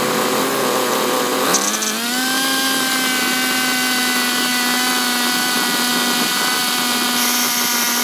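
Small red petrol engine driving a homemade microwave-transformer generator. It revs up about a second and a half in, then runs steadily at high speed with a whining, buzzing note.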